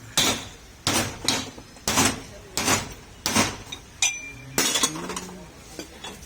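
Hammer striking metal: about eight sharp blows with a metallic ring, spaced roughly two-thirds of a second apart, stopping about five seconds in.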